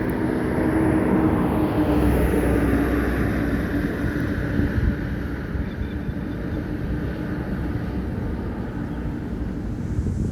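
A vehicle passing on the highway: a low rumble of engine and tyres, loudest about two seconds in and then easing off, with wind on the microphone.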